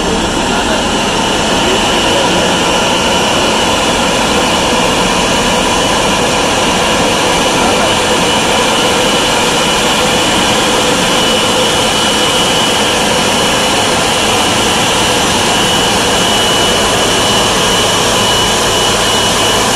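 A Boeing 777-200ER's twin jet engines running at taxi power as the airliner rolls in toward its stand: a loud, steady rush with a thin high whine that grows stronger about halfway through.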